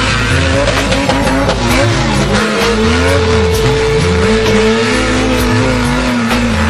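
An SUV spinning donuts on asphalt, its engine revving and its tyres squealing as they spin and smoke. A song with a steady bass line and a held, gliding vocal line plays over it.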